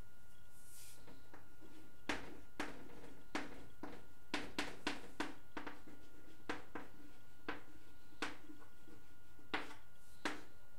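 Chalk writing on a blackboard: a string of sharp, irregular taps and short strokes as letters are written, starting about two seconds in.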